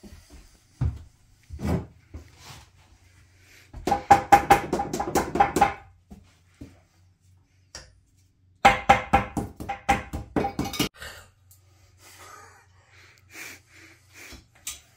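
Hammering in two rapid bursts of about four or five blows a second, each blow ringing at the same pitch, with a few single knocks between and around them.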